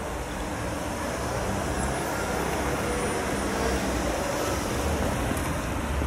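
Steady outdoor background noise of wind buffeting the microphone and distant road traffic; the siren is not sounding.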